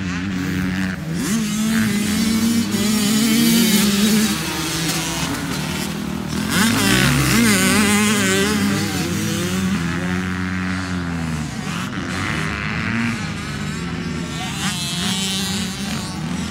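Several small youth dirt-bike engines revving on a motocross track, several at once, their pitch rising and falling as the riders open and close the throttle. The loudest moment comes about seven seconds in, where engine notes sweep across each other.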